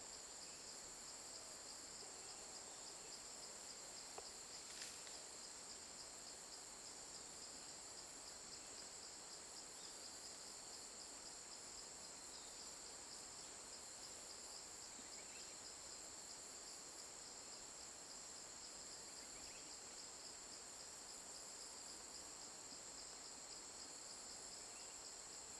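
Faint, steady chorus of insects trilling at several high pitches, with a fine rapid pulse in the lower band. A single small tick sounds about five seconds in.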